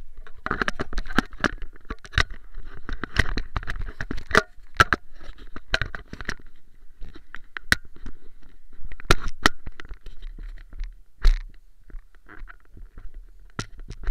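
Handling noise from a GoPro action camera: fingers rubbing and scraping on its case, with many irregular sharp clicks and knocks. The rubbing is heaviest in the first few seconds.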